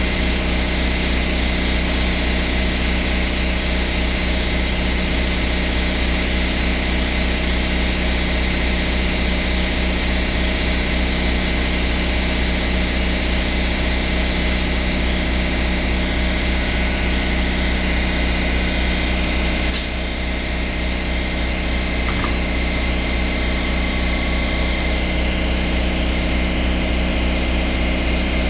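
Air compressor running steadily, feeding an HVLP paint spray gun whose hiss of air stops sharply about halfway through as the trigger is released; a single click follows a few seconds later while the compressor runs on.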